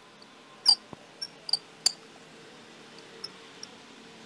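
A few small, sharp clicks and taps of tablet parts being handled, the loudest about two-thirds of a second in and the rest scattered over the next second or so, then two faint ticks near the end.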